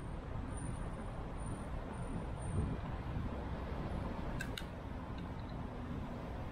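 Steady wind rush and road noise picked up by a bicycle-mounted action camera while riding, with two sharp clicks about four and a half seconds in.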